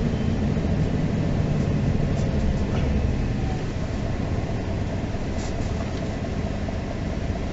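Steady rumble of a MAN NG 313 articulated bus's diesel engine and running gear, heard from inside the bus, easing off slightly toward the end.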